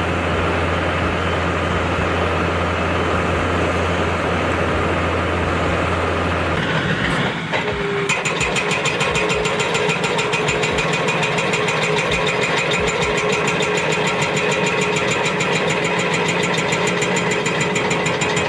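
Heavy machinery engine running steadily. About seven seconds in, the sound changes to a fast, even mechanical rattling.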